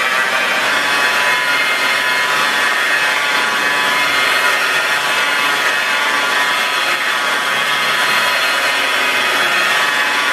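Rotary car polisher (buffer) running steadily, its pad rubbing over car paint: a steady whine over a rushing hiss.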